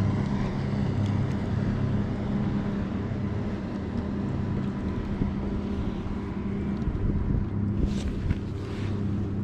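A steady low mechanical hum with wind noise, as a fish is reeled up on a baitcasting reel. Near the end come two short splashy sounds as the fish reaches the surface.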